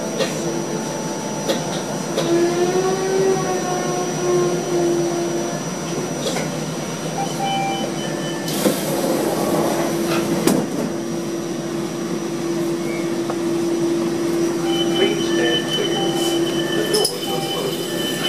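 Inside an NFTA Metro Rail car coming to a stop: a steady electrical hum with a wavering whine, then the doors open with a rush about eight and a half seconds in, with short high beeps, and the doors start moving again near the end.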